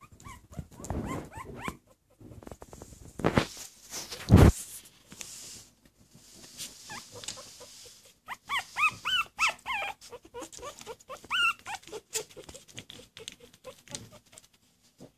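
Newborn puppies squeaking and whimpering in short, high-pitched cries that rise and fall, a cluster near the start and more from about eight seconds in. Two loud bumps about three and four seconds in, the second the loudest.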